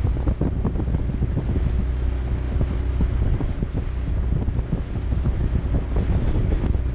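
Wind buffeting the microphone over a small open boat under way: its motor runs as a steady low hum while the hull knocks and splashes through the water in quick irregular slaps.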